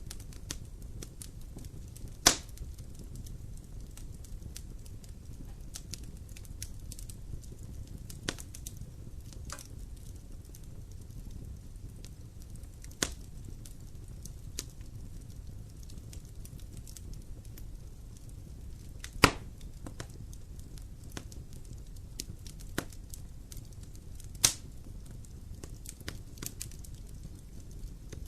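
Fire burning in a fireplace: a steady low rumble of flames with frequent small crackles and a few sharp, loud pops, the loudest about two seconds in and about two-thirds of the way through.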